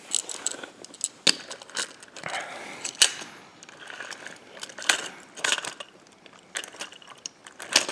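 Irregular clicks and knocks of die-cast toy trains and plastic playset pieces being handled and moved about.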